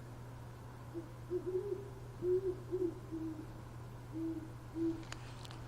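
Barred owl hooting: a run of about eight deep hoots in uneven groups, over a steady low hum. A few faint clicks follow near the end.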